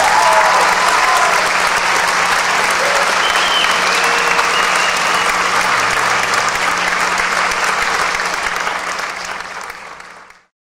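Audience applauding at the end of a live song, the clapping dying away and then cut off near the end.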